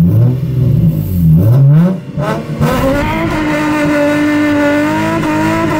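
Car engine heard from inside the cabin, revving under hard driving: its pitch drops and climbs back twice, then from about halfway it pulls steadily, the note slowly rising as the car accelerates.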